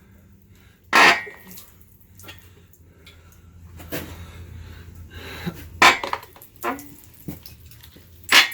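Metal clanks and knocks from an engine and its parts being handled on an engine stand. One loud ringing clank about a second in is followed by several lighter knocks, over a steady low hum.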